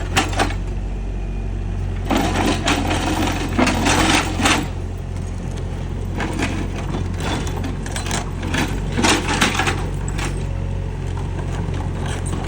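Mini excavator's diesel engine running steadily, with bursts of metallic clanking and rattling at two points: about two seconds in and again around six to ten seconds in.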